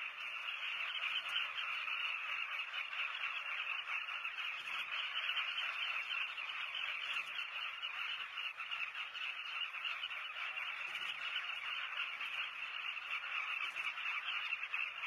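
A breeding colony of southern carmine bee-eaters calling all at once: a steady, dense chorus of many short, croaking calls overlapping without a break.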